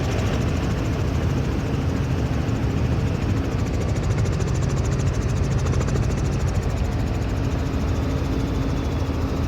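Helicopter running steadily, its engine whine and rotor beat as a loud, even drone with a rapid regular pulse.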